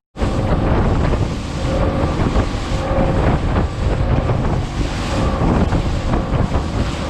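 Heavy wind buffeting the microphone over the rush of a boat moving across open water, a loud steady roar that cuts in abruptly just after the start.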